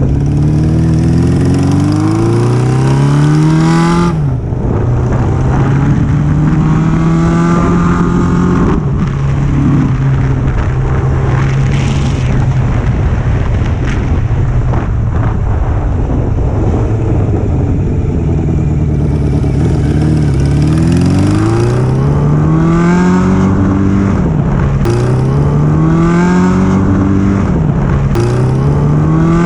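1981 Suzuki GS750L's inline-four engine revving up again and again, its pitch climbing and then sagging back each time. The engine bogs hard and loses rpm as the revs rise, which the owner suspects is ignition timing, weak ignition coils, an exhaust leak or float height.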